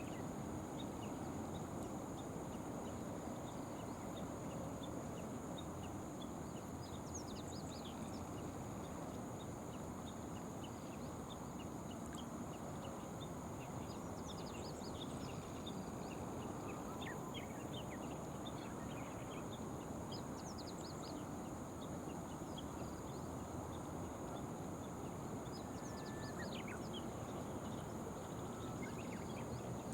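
Outdoor riverside ambience: a steady low rushing noise with many short, high bird chirps scattered throughout, over a steady high-pitched hum.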